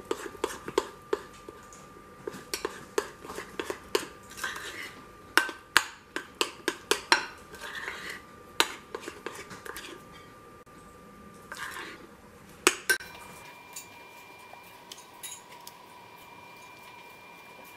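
A metal spoon clinks and scrapes against a ceramic mixing bowl while stirring thick chocolate cake batter, with irregular sharp clinks, the loudest bunched in the middle. About thirteen seconds in the clinking stops and only faint scraping remains.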